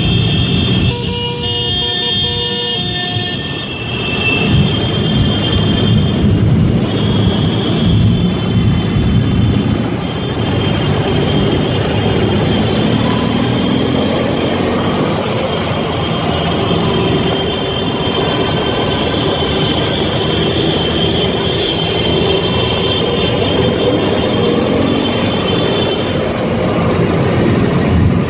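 Ural 750 motorcycle's boxer-twin engine running on the move among a large group of motorcycles, with vehicle horns sounding: a horn chord about one to three seconds in and steady high horn tones through most of the rest.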